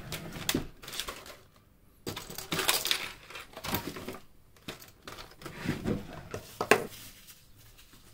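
Tools and small parts clinking and knocking as they are handled, in irregular separate clicks with a longer scraping stretch about two seconds in.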